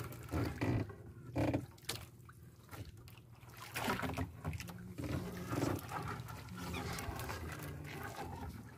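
Wet trammel net being pulled hand over hand aboard a small fishing boat: irregular swishing rustles with seawater dripping and splashing, over a low steady hum.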